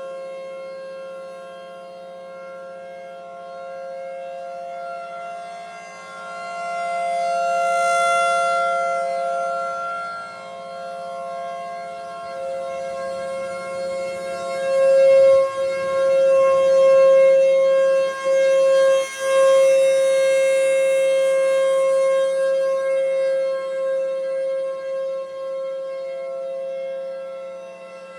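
Federal Signal Thunderbolt 1000B and Federal Signal 2001-130 outdoor warning sirens sounding together on a steady alert tone, rising and falling in loudness as the rotating sirens sweep past.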